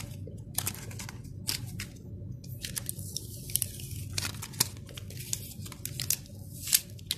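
A small clear plastic accessory bag crinkling in the hands as it is worked open, with many short, sharp, irregular crackles.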